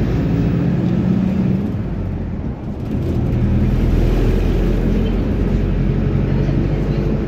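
Engine and road noise heard inside a PAZ-320402 city bus as it drives along. The engine note dips briefly about two and a half seconds in, then picks up again.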